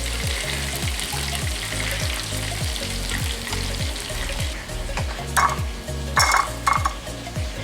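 Chicken pieces deep-frying in hot oil, a steady sizzle that thins out after about four and a half seconds, over background music with a repeating bass line. Near the end come three short clatters.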